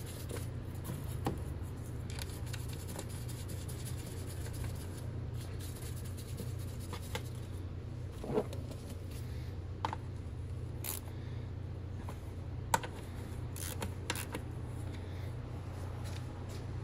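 Scattered small clicks, taps and scrapes of hand work on engine parts, over a steady low hum. The sharpest clicks come about eight and a half and thirteen seconds in.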